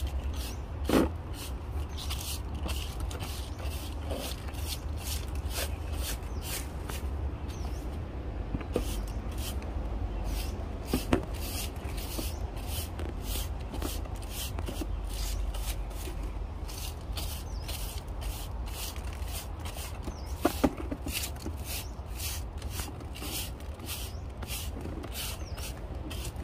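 Broom sweeping wet leaves over wet concrete steps into a plastic dustpan, in quick regular strokes about two a second. Three louder knocks stand out: one near the start, one in the middle and one about three-quarters through.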